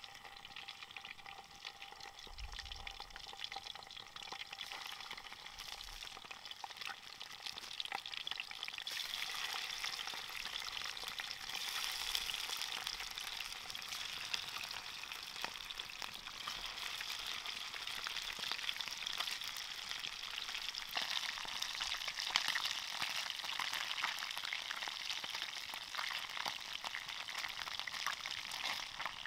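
Chunks of mackerel tuna sizzling and crackling in hot oil in a frying pan. The sizzle grows louder about a third of the way through as more pieces go in, then holds steady.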